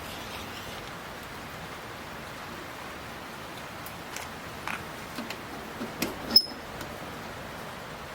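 Steady hiss of rain falling, with scattered sharp ticks, the loudest about six seconds in.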